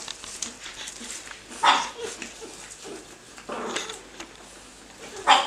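Pug puppies yapping and yelping as they play, with two sharp, loud yaps, one about a second and a half in and one near the end, and a softer drawn-out yelp between them.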